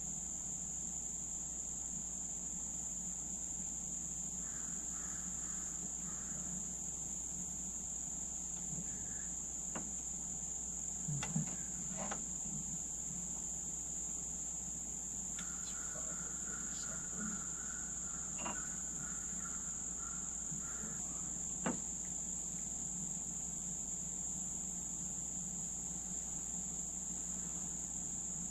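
Steady, high-pitched, unbroken chorus of insects, typical of crickets. A few light knocks or taps sound over it midway through.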